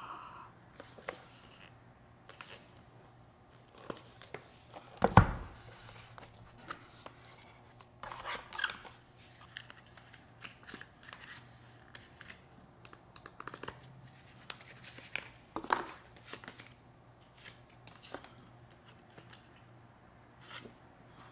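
Quiet handling of a cardboard knife box and paper cards: rustling, sliding and small taps of card and paper, with one solid thump about five seconds in.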